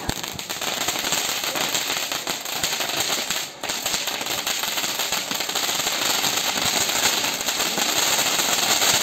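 Hand-held novelty spark-fountain firecracker hissing steadily as it sprays sparks, with rapid crackling from small bursting stars; the sound dips briefly about three and a half seconds in.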